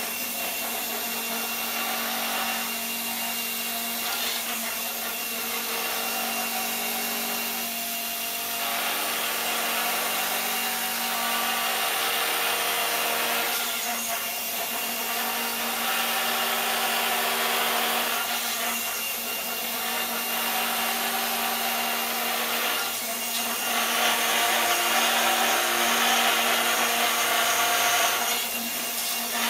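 Steady mechanical whirring of a motor-driven gyroscopic inertial thruster as its gyro assembly spins. A steady hum runs under it, with noisy swells every few seconds that grow louder near the end.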